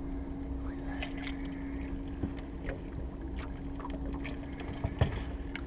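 Alumacraft aluminium fishing boat on the water: a steady low hum with scattered light knocks and clicks, and one sharp knock about five seconds in.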